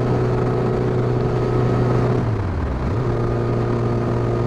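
Honda CBR1100XX Blackbird's inline-four engine running steadily at cruising revs, heard while riding, with wind and road noise. About two seconds in, the engine note drops briefly and climbs straight back.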